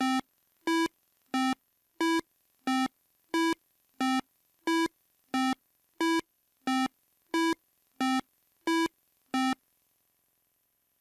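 Synthesized beeps alternating between a low and a slightly higher note, about one and a half a second, stopping shortly before the end.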